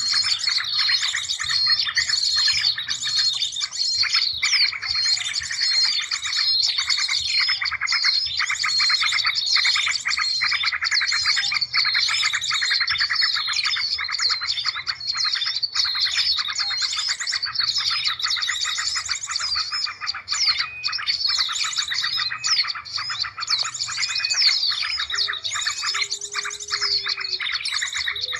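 Many small birds chirping and twittering at once in dense, rapid, overlapping calls that never let up: a bird-lure (pikat) call recording made to draw in small birds.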